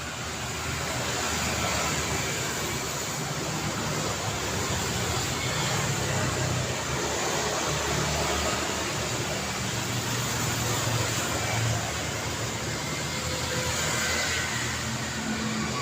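City road traffic: a steady wash of tyre noise and the low hum of car engines from passing vehicles, swelling slightly in the middle.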